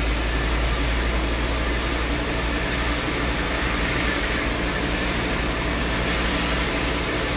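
Steady road noise inside a Volkswagen camper's cab while driving: engine running with a low rumble, and tyres hissing on the rain-soaked road.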